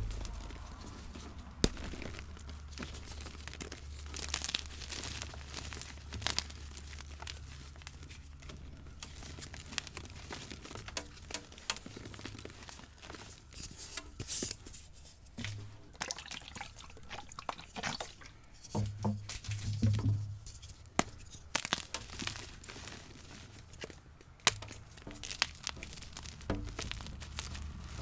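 Pasted gym chalk being crushed and crumbled by hand: irregular crisp crunches and crackles with some soft low thuds.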